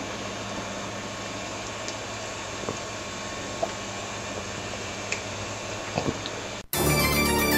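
Steady hiss and low hum of room tone with a few faint knocks. Near the end it cuts out abruptly and loud music begins.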